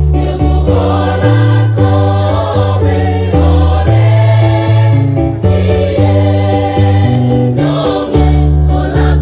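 Choir singing in several parts, holding chords that change every half second to a second.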